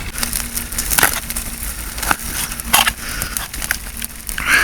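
Small wood fire crackling, with irregular sharp snaps and crunches over a steady hiss.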